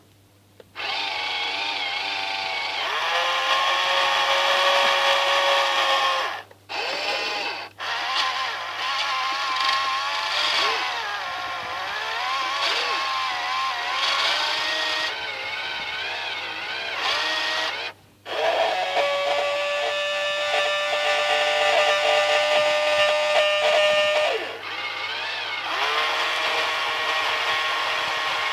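Small electric motors and gearboxes of a radio-controlled model excavator whining as they run. The pitch is held for seconds at a time and shifts as the load changes. The whine stops briefly a few times, and a steady low hum runs underneath.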